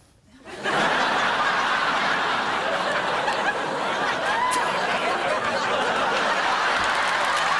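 A studio audience breaking into laughter about half a second in and laughing on steadily and loudly, a crowd of many voices.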